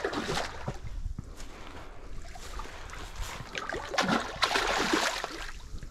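A hooked fish thrashing and splashing at the water's surface, in a burst at the start and again about four seconds in.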